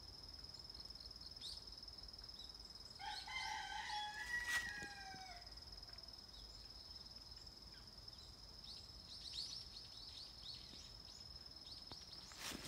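Insects trill steadily on one high note. A rooster crows once about three seconds in, a drawn-out call that falls at its end. A small bird chirps in quick falling notes around the ninth second.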